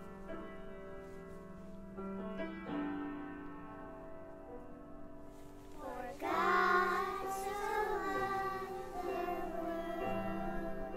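A song for a children's choir: steady instrumental accompaniment, then young children's voices begin singing about six seconds in.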